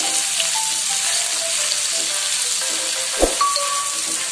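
Sliced onion, garlic and bird's eye chillies sizzling in hot oil in a wok as a spatula stirs them, a steady hiss. A single sharp knock about three seconds in.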